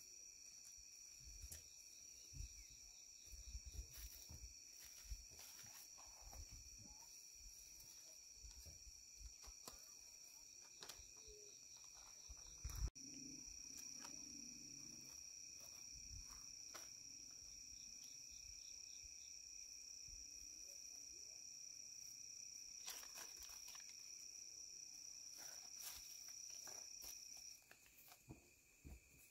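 Faint, steady, high-pitched insect trilling at two pitches at once, with scattered light clicks and a single sharp knock about halfway through; the higher trill stops near the end.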